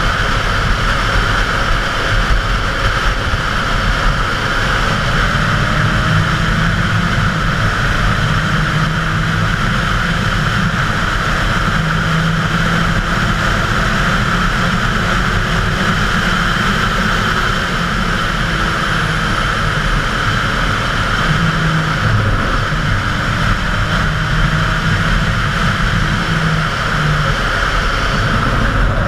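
Wind rushing over a helmet-mounted camera at road speed, with a Suzuki GSX-R 750's inline-four engine running underneath, its pitch rising a few times as the revs climb.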